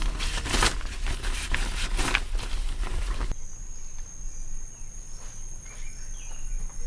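Water in a pool splashing and swishing in short washes, then, after a sudden change a little over three seconds in, insects keeping up a steady high-pitched trill with faint short chirps.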